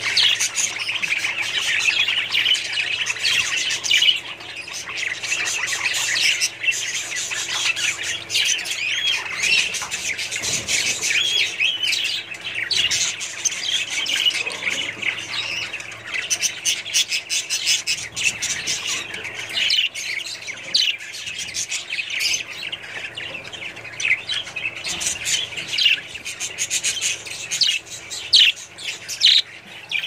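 A flock of budgerigars chattering: many short chirps and warbles overlapping without a break.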